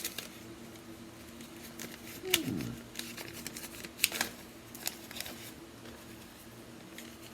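Paper rustling and a few sharp crinkles and clicks as a folded letter is handled and opened, over a faint steady hum. A brief falling murmur comes a couple of seconds in.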